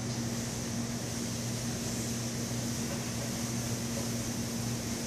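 Steady room tone: an even, constant hum with a low electrical buzz under it and a soft hiss.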